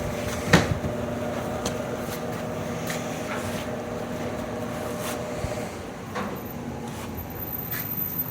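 Toshiba ED-608 washer-dryer running with a steady hum and a sharp knock about half a second in, followed by lighter scattered ticks; the hum dies away about five and a half seconds in. The abnormal noise was traced to a worn fan bearing.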